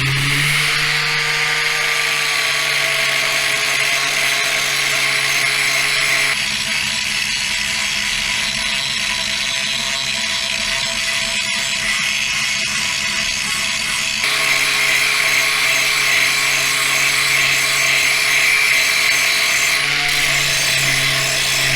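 Handheld angle grinder running steadily, grinding steel around the edge of a plow moldboard to clean it for welding. Its sound shifts in a middle stretch, from about six to fourteen seconds in, then returns to the earlier grinding note.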